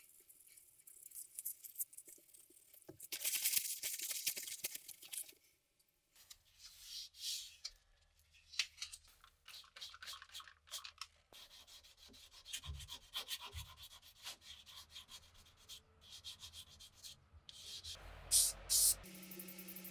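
Gloved hands rubbing the grip of a WW2 M1 Garand bayonet, then many short scratchy strokes of sandpaper on the steel blade. Near the end come two short loud hisses from an aerosol spray-paint can.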